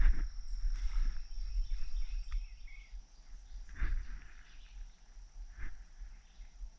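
Steady high-pitched insect drone in the woods, with a few scattered rustles in leaf litter, the loudest about four seconds in.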